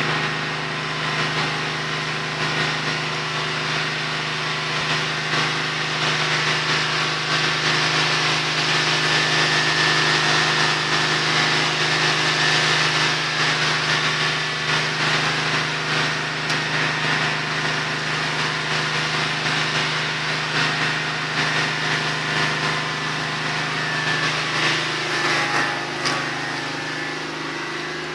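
An engine running steadily: a constant drone with a hiss over it.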